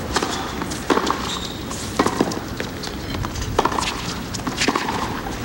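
A tennis rally: sharp knocks of racquets striking the ball and the ball bouncing on a hard court, irregularly, about a second apart.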